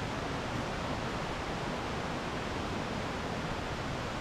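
Steady rush of fast-flowing river water and waterfalls.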